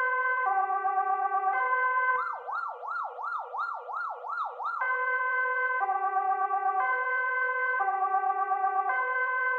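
Swedish police siren alternating between two tones, each held about a second. A little over two seconds in it switches to a fast yelp sweeping up and down about three times a second, then returns to the two-tone pattern near five seconds in.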